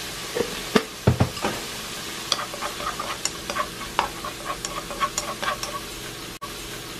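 Baby clam meat and shallots sizzling in a nonstick frying pan while chopsticks stir them, tapping and scraping the pan in many quick clicks. A few louder knocks come about a second in.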